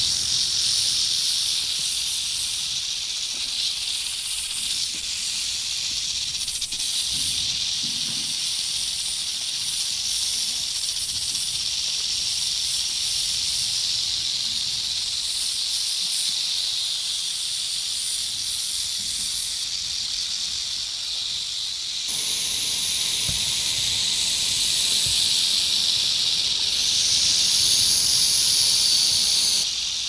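Snake hissing: a continuous, steady high-pitched hiss. It shifts to a brighter, louder hiss about two-thirds of the way through and grows louder again near the end.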